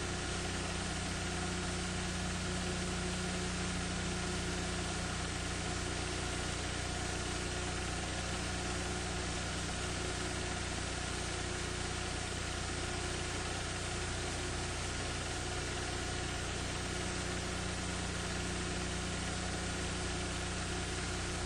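Steady hiss with a constant low electrical hum: the noise floor of footage that has no soundtrack.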